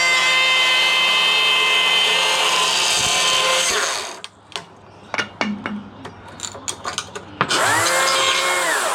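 Chainsaw revved up and held at high revs for about four seconds, then let down, followed by scattered clicks and knocks; near the end it is revved up and back down again once.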